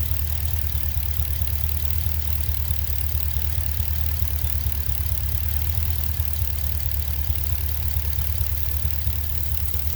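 Pontiac G8's 6.0 L L76 V8 idling steadily, with the valvetrain noise that the owner suspects may be excessive lifter or rocker noise rather than normal.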